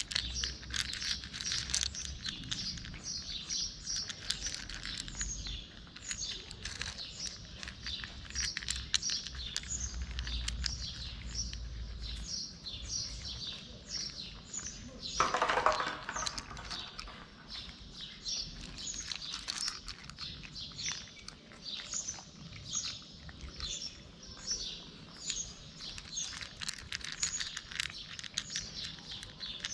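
Small birds chirping almost without pause, with the fine crunching of two cats chewing dry kibble close by. A louder call of about a second stands out about halfway through.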